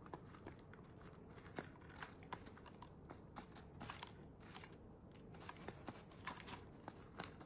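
Small parrots husking and cracking seeds with their beaks: a run of faint, irregular little cracks and clicks.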